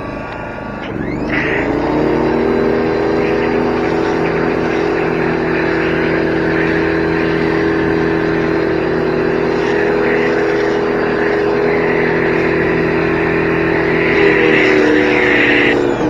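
Cat 1800 PSI electric pressure washer kicking on about a second in as the trigger is pulled, its motor and pump running steadily under load with the hiss of spray through the foam cannon, then shutting off just before the end. A generator drones underneath throughout.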